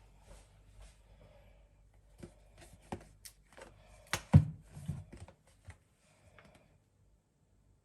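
A series of small clicks, taps and knocks from objects being handled, sparse at first and busier from about two seconds in, with the loudest knock about four seconds in.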